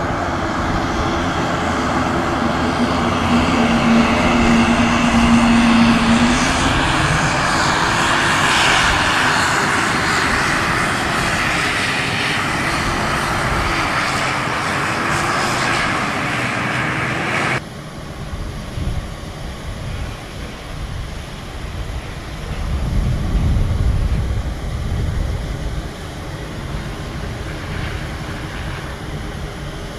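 Saab 340B's GE CT7 turboprop engines running on the ground: a loud, steady engine noise with a pitched hum that wobbles up and down. About 17 seconds in the sound drops suddenly to a quieter run, which swells for a couple of seconds a little later.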